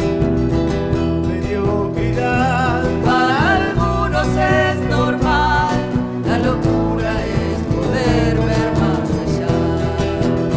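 Live folk band music led by guitars, with a wavering melody line rising over the chords several times.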